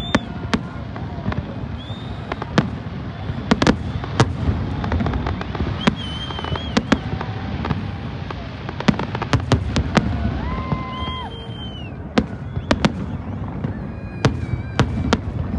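Fireworks display going off: rapid, irregular sharp bangs and crackles over a continuous low rumble, with short whistling tones here and there.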